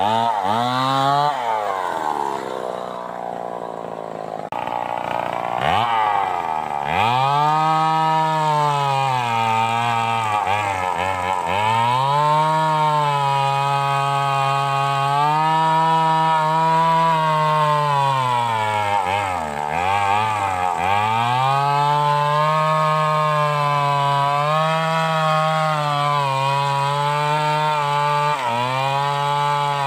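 Stihl 038 two-stroke chainsaw revved up and held at high speed for long stretches. It drops back toward idle several times: briefly about a second in, for a lower, quieter spell until about 6 s, then again around 10 s, around 20 s and near the end.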